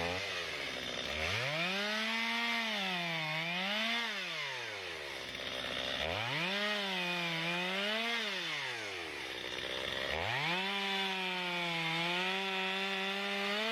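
Chainsaw revved up three times to full speed while cutting a log, its pitch sagging briefly as the chain bites, and dropping back toward idle between runs. The third run is the longest and holds steady.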